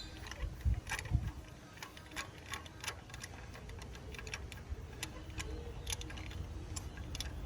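Light, irregular metallic clicks and taps as a new spark plug is turned in by hand and threaded into the cylinder head.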